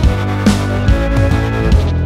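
Background music with a steady drum beat under sustained instrumental tones.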